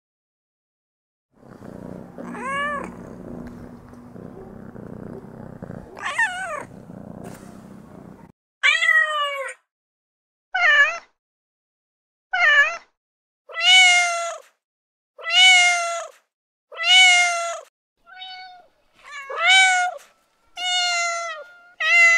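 Recorded domestic cat meowing, played back as sound-effect clips: about a dozen separate meows, each bending up and down in pitch. The first few are over a steady low background noise, then a clean run of meows follows, about one every one and a half seconds.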